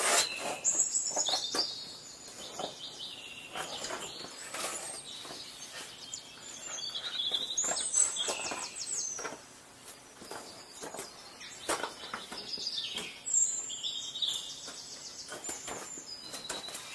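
A songbird singing several phrases of rapid, high trills, some falling in pitch, with scattered crunches and knocks of footsteps on snow, ice and rock in between.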